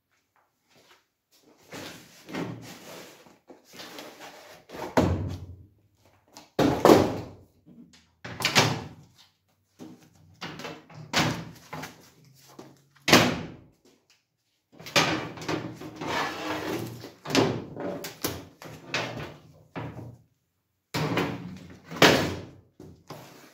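Painted sheet-steel panels of a folding welding booth being unpacked and handled: irregular knocks and clatters against each other and the steel bench, with rustling of the foam packing sheets between them.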